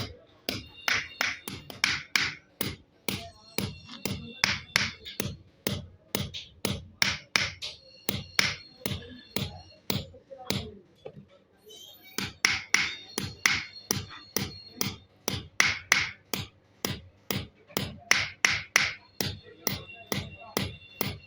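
Blacksmith's hand hammer striking steel in a steady rhythm of about three blows a second, each with a short metallic ring. The blows stop for a second or two a little past halfway, then resume.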